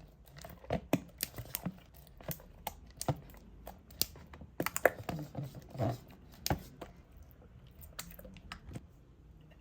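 Slime being handled and mixed, giving irregular sticky clicks and pops, thickest in the first six seconds and thinning out toward the end.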